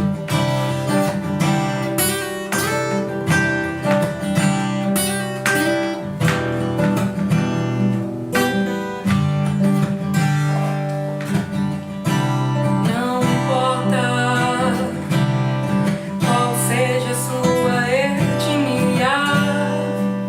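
Acoustic guitar strummed in a steady rhythm as a song's instrumental opening. About two-thirds of the way in, a gliding, wavering melody line joins over the chords.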